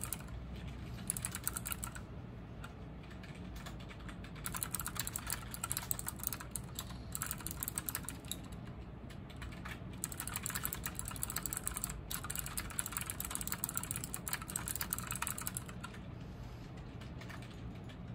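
Typing on a MANIC X50 mechanical keyboard with fourth-generation optical switches and PBT keycaps. A short run of keystrokes and a pause of about two seconds are followed by a long, fast, continuous run of key clicks, which stops about two seconds before the end.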